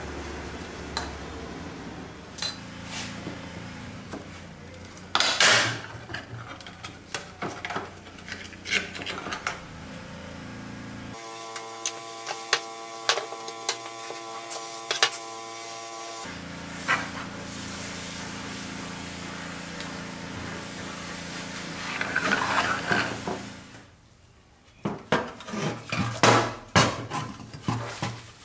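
Rusty pressed-steel toy truck parts handled and pried apart on a workbench: scattered metallic clicks, taps and clinks. For about five seconds midway, a steady pitched tone with several overtones sounds over the handling.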